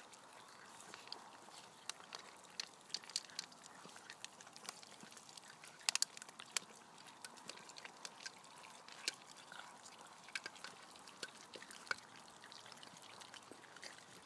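Labrador puppies eating raw tripe and chicken: wet chewing, licking and smacking, heard as many small irregular clicks.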